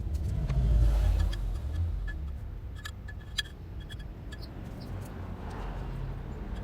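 A low vehicle-like rumble that swells and fades in the first second and a half, with a quick cluster of light metallic clinks about three seconds in, like tools and bolts handled during work on a motorcycle's generator cover.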